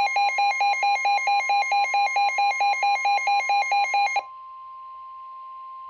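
NOAA Weather Radio 1050 Hz warning alarm tone, a steady single tone, with a loud, rapidly pulsing multi-tone alarm beep over it. The pulsing stops about four seconds in and the steady tone carries on alone, quieter. This is the tone that signals a warning is about to be broadcast.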